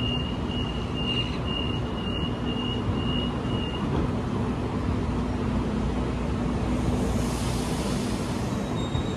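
Sydney Trains electric train standing at the platform with its doors closing: a high warning beep repeats about twice a second for the first four seconds over the train's steady hum. A hiss swells about seven seconds in.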